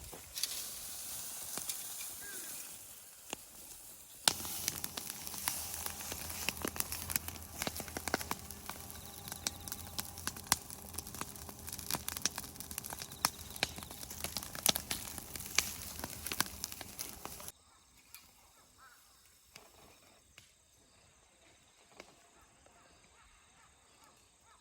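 A pile of dried, mown weeds burning in an open fire, crackling and popping over a steady hiss. The crackling is densest through the middle and drops off suddenly about two thirds through, leaving only faint scattered pops.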